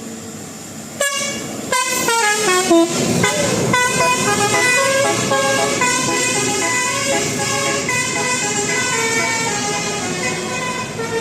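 Multi-tone telolet horn playing a melody. It starts suddenly about a second in with a quick run of short notes, then goes on into a longer tune of stepped notes.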